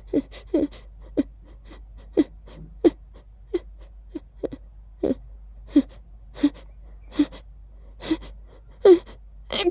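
A person's short voiced gasping breaths, a long uneven series at roughly one to two a second and growing louder towards the end: the hitching build-up before a sneeze.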